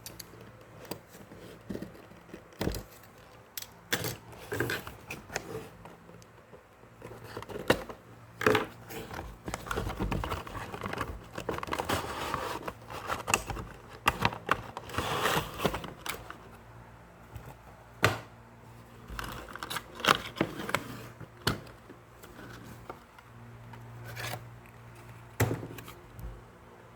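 Packaging being handled while a diecast model car is unboxed: plastic and paper crinkling and tearing, busiest around the middle, with scattered sharp clicks and taps throughout.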